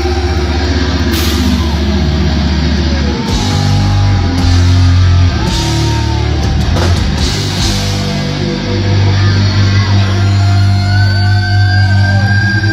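Death metal band playing live: loud, heavily distorted electric guitars and bass with a drum kit.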